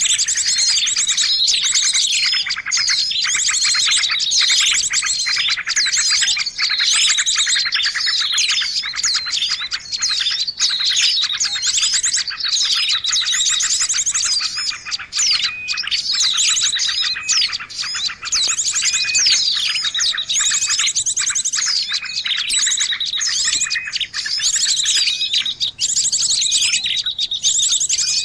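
Birds chirping non-stop in a dense, overlapping chorus of rapid high chirps and trills, played as a lure call for trapping birds.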